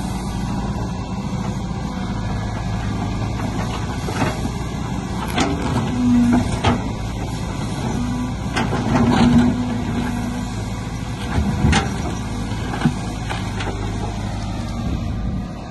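Caterpillar hydraulic excavator's diesel engine running steadily while the bucket digs into gravel, with scattered knocks and scrapes of stones. The engine note swells briefly about six seconds in and again about nine seconds in.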